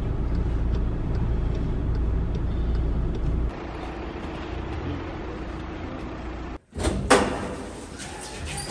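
Steady low rumble of a car heard from inside its cabin, stopping abruptly about three and a half seconds in. Quieter steady background noise follows, then a couple of sharp knocks near the end.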